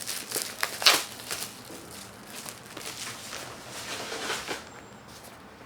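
Crinkling and rustling of packaging, likely the sketchbook's plastic wrap, in irregular crackles as it is handled and peeled off. Loudest about a second in, dying down after about four and a half seconds.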